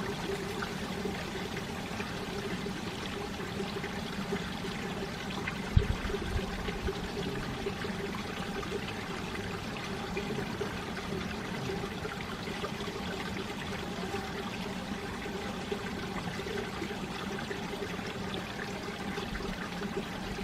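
Mountain valley stream flowing and splashing steadily over rocks, with a brief low thump about six seconds in.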